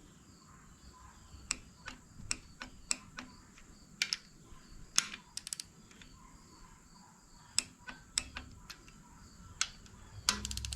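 Torque wrench ratcheting and clicking as bolts are tightened: scattered sharp metallic clicks at irregular intervals, a few in quick runs.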